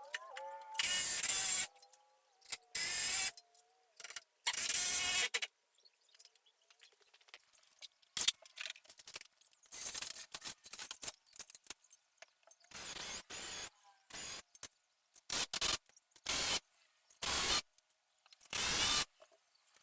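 Cordless drill and impact driver running in repeated short bursts, pre-drilling and driving 2.5-inch screws into 2x4 framing. Three longer runs come in the first few seconds, then a string of shorter ones.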